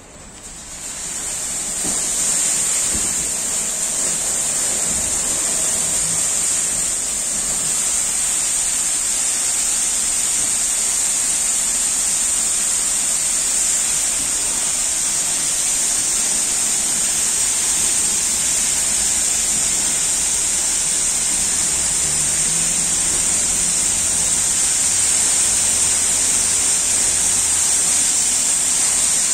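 WashTec automatic car wash gantry starting its cycle: a steady high water-spray hiss comes up over the first couple of seconds. About twenty seconds later a low motor hum joins as the gantry travels onto the car with its brushes turning.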